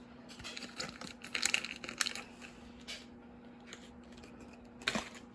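Small plastic packaging crinkling and rustling in the hands as miniature toy pieces are unwrapped, with a few small clicks, mostly in the first two seconds.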